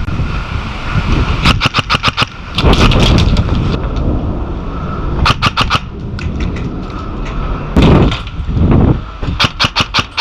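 Airsoft electric rifle (AEG) firing several short bursts of rapid shots, each burst under a second, over wind buffeting the microphone.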